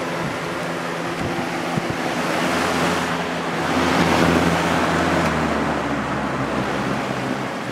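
Vintage Galaxy two-speed box fan with a plastic Marco motor running, its blades moving air with a steady low motor hum. The rush of air swells, loudest about four seconds in, then eases near the end. The motor hum is light, which the owner takes as the sign of a low-hours fan.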